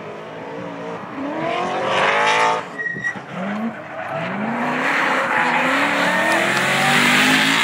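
Drift car's engine revving hard, its pitch climbing and dropping several times, with tyres squealing and skidding as the car slides sideways around the course. It grows louder toward the end as the car comes nearer.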